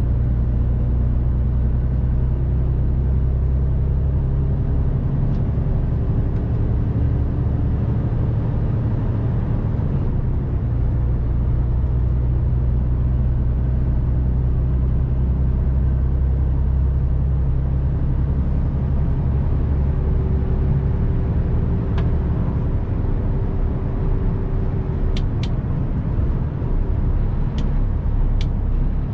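Mercedes Actros 1851 truck's straight-six diesel running steadily while driving, heard from inside the cab, its engine note shifting a couple of times. A few sharp clicks come near the end.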